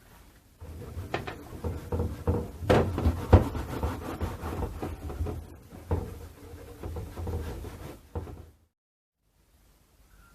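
Irregular rubbing, scraping and knocking of hand work on a small object, with sharp clicks throughout; it stops abruptly near the end.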